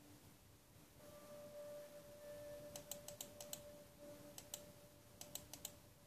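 Faint clicking at a computer as the document is scrolled: three short runs of quick clicks, a few clicks in each, over a faint steady tone.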